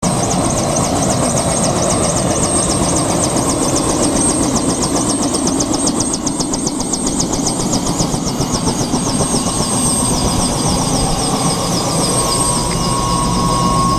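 Tour helicopter running steadily, with a constant high-pitched whine over a dense mechanical noise and a fast, even beat.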